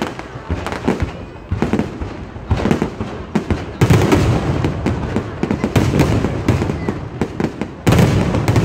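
Aerial fireworks going off in a rapid barrage of bangs and crackling, with two loud, dense surges of explosions, one about four seconds in and one near the end.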